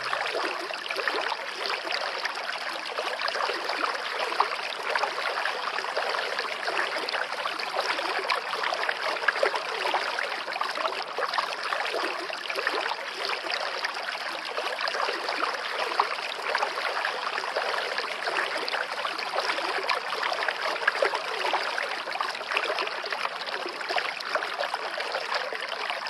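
Stream water rushing over rocks in a steady, even rush.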